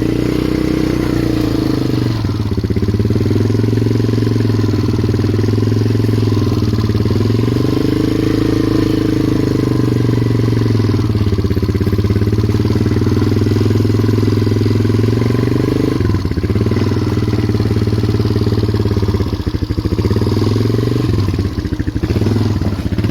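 Polaris Magnum 425 ATV's single-cylinder four-stroke engine running under load as it is driven through deep snow, its revs dropping and climbing back several times as the throttle is worked.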